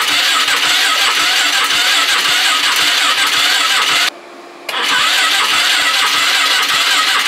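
An old four-wheeler's electric starter cranking its engine over in bitter cold without it firing, in two long cranks with a short pause about four seconds in. Each crank has a quick, even beat of compression strokes under a loud starter whir.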